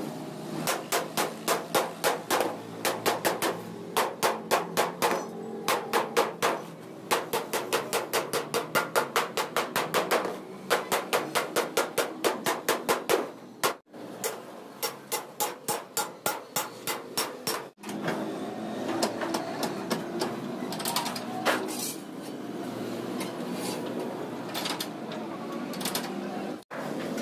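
Hammer blows on sheet steel, struck rapidly at about four a second in runs of several seconds with short pauses between. In the last third the blows thin out to a few scattered strikes over a steady workshop noise.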